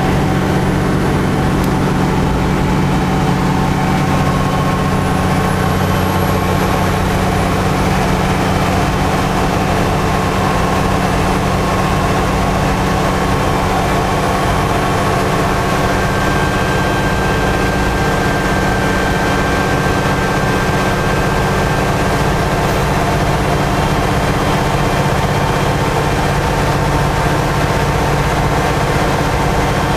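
Alexander Dennis Enviro 500 double-decker bus's diesel engine running steadily at highway speed, heard from inside the lower deck, with a drone of road noise.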